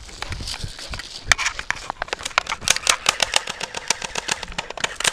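Airsoft guns firing: one sharp crack about a second in, then from about halfway a quick run of sharp cracks at roughly six a second. A rustling hiss comes before the run.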